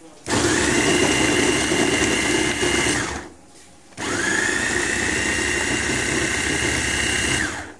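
Electric food chopper chopping cubes of raw ginger in two pulses of about three seconds each. Each time, the motor whine rises as the blades spin up and drops as it cuts off.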